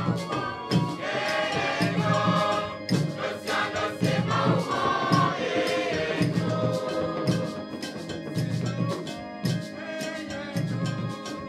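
A mixed youth choir singing together, accompanied by hand drums beating a steady, driving rhythm.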